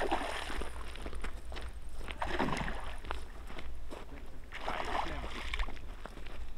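A hooked fish splashing and thrashing at the surface of the water while being played to the net, in three bursts of splashing about two seconds apart.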